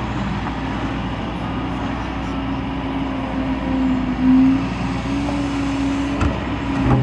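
Liebherr A 920 wheeled excavator's diesel engine and hydraulics running steadily under work. Its hum swells and grows louder midway, then settles back.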